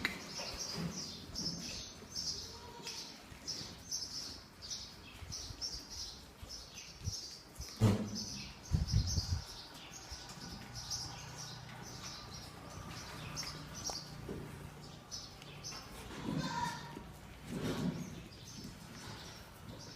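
Small birds chirping rapidly and repeatedly, thickest in the first half. A loud low sound comes about eight seconds in, and a couple of louder, lower-pitched sounds come near the end.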